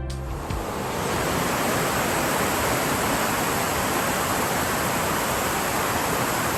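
Steady rush of Amicalola Falls' cascades: a dense, even wash of falling water that swells in over about the first second. The falls are in high flow after weeks of heavy rain.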